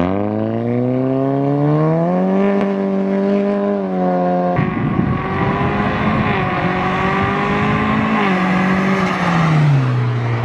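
Nissan Juke's turbocharged 1.6-litre MR16DDT four-cylinder, breathing through an Injen short ram intake, pulling hard under acceleration: engine pitch climbs for about two seconds, then holds steady. About four and a half seconds in the sound changes abruptly to another run with more road and wind noise, and the engine pitch drops near the end as the car goes by.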